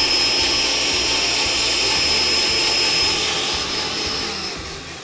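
Vita-Mix blender motor running at high speed with a steady high-pitched whine while oil is drizzled into egg yolks and water to emulsify them into a thick creamer. It winds down near the end as the blender is switched off.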